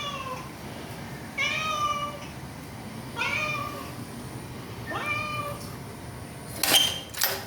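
Domestic cat, sick with a cough and cold, meowing four times, each meow short and slightly falling in pitch. Near the end come two sharp knocks.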